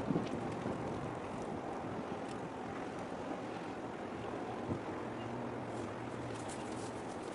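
Wind blowing over the microphone above a steady wash of small waves on open harbour water, with a faint low hum about five seconds in.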